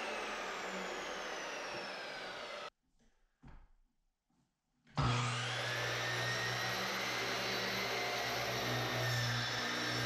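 Electric sliding miter saw winding down with a falling whine, which cuts off abruptly a little under three seconds in. After about two seconds of near silence the saw starts up with a sharp rising whine and runs at full speed with a steady hum.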